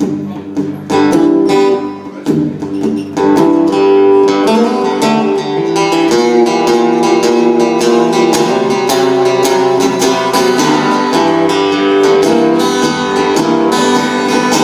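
Acoustic guitar played steadily in a folk-blues style: an instrumental lead-in before the singing of a song.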